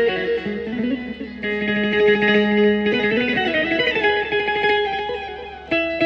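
Amplified Indian keyed banjo playing a melody of plucked, held notes that step in pitch. The playing falls off about five and a half seconds in, then comes back loudly just before the end.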